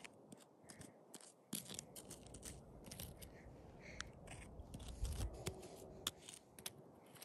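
Faint, irregular clicks and scrapes as plastic toy horse figurines are moved across gravelly dirt, over a low rumble that starts about a second and a half in.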